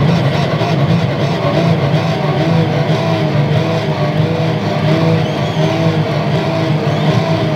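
Electric guitar solo played loud through an arena PA, with held notes that waver in pitch from a few seconds in, over a heavy low rumble; the recording is overloaded and distorted.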